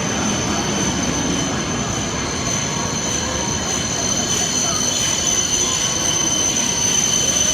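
Coupled H5 series and E6 series shinkansen trains rolling slowly into the platform at steady loudness, with wheel squeal and a steady high-pitched whine over the running noise.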